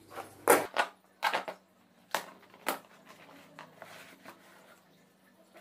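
A cardboard parcel being cut open with a knife and its flaps torn apart: a series of sharp rips and crackles of cardboard and packing tape, loudest in the first three seconds, then fainter rustling of the box.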